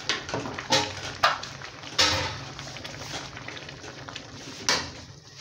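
Cookware knocks: a spoon and a metal lid clacking against a large metal cooking pot. There are about five sharp knocks spread unevenly, the loudest about two seconds in and another near the end.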